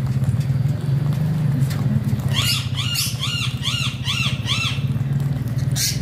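A parakeet gives a run of about eight sharp, rise-and-fall squawking calls, roughly three a second, starting a little after two seconds in. A steady low hum runs underneath.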